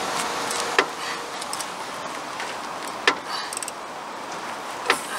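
Three sharp clicks or knocks, about a second in, about three seconds in and near the end, with a few fainter ticks between them over a steady background hiss.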